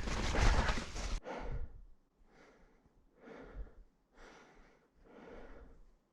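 Mountain bike riding noise cuts off abruptly about a second in, then the rider's heavy breathing follows, about one breath a second.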